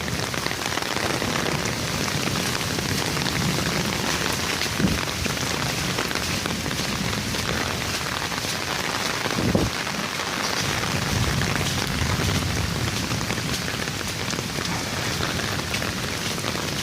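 Steady rain falling, with a couple of brief knocks, one about five seconds in and one near ten seconds.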